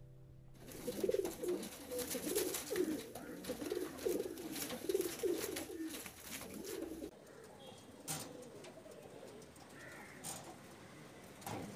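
Domestic fancy pigeons cooing: a run of repeated low coos for the first several seconds, then fainter cooing with a few sharp clicks.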